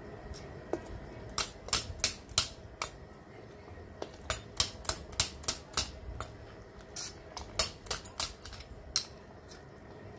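Light metallic clicks and taps, irregular and sometimes in quick runs, from a stainless mesh strainer being worked as blended guajillo chile sauce is pushed through it over the pot.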